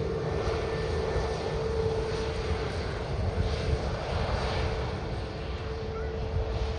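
Airbus A320neo's CFM LEAP-1A turbofan engines running as the jet comes in to land: a steady drone with one constant tone over a low, uneven rumble.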